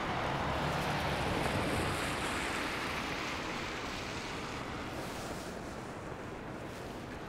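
Street traffic: a vehicle passing on a city street, a steady hiss of tyres over a low rumble, loudest in the first couple of seconds and then slowly fading.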